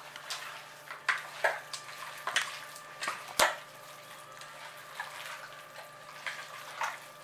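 Hands working raw mutton in a spice paste and mustard oil in a steel pot to marinate it: irregular wet squelches and slaps, with knocks against the pot, the loudest about three and a half seconds in.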